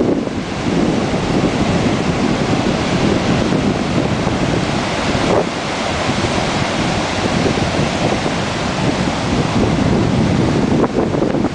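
Ocean surf breaking steadily, with strong wind buffeting the microphone.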